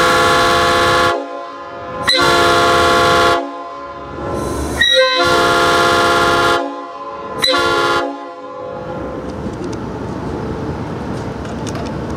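Multi-chime locomotive air horn blown on compressed air, sounding a steady chord in four separate blasts, the last one shortest.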